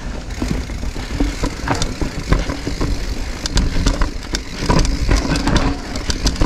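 Giant Reign mountain bike clattering down a rough, rocky downhill trail: many irregular sharp knocks and rattles from tyres, chain and frame hitting rock, over a steady low rumble.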